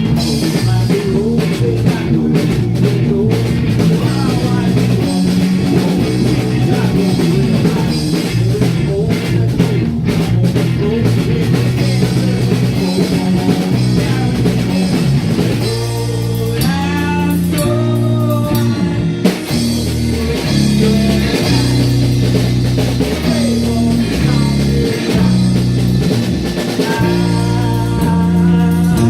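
Live rock band playing a song: guitar, bass guitar and drum kit.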